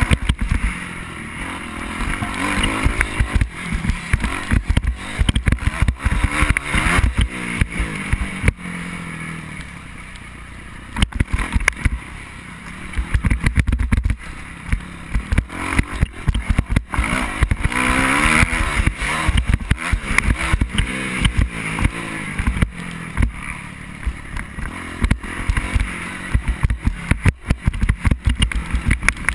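Motocross dirt bike engine heard from a helmet camera, revving up and falling off again and again as the bike is ridden round a dirt track, with wind buffeting and knocking on the microphone. The engine is quieter, off the throttle, for a few seconds near the middle, then picks up again.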